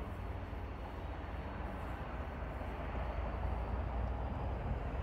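Steady low rumble of a diesel locomotive, growing a little louder over the last couple of seconds.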